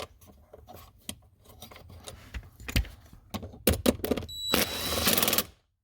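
Scattered clicks, knocks and rattles of small parts being handled and fitted under a car's dashboard. Near the end comes about a second of dense, rapid clicking that cuts off suddenly.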